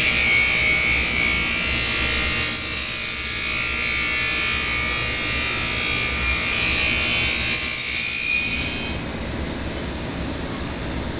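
Parts-washing tank running with a loud, high-pitched buzzing hiss and a faint steady whine. It cuts off abruptly about nine seconds in, leaving a quieter low hum.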